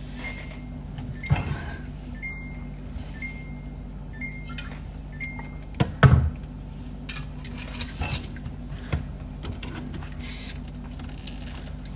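Glass and dishes clinking and knocking as drinks are handled, with one loud knock about six seconds in. Faint short beeps repeat about once a second through the first half.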